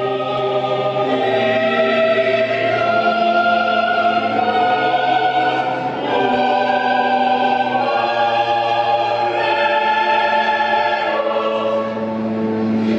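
Choral music: several voices singing long held notes in slow, solemn chords that change every few seconds.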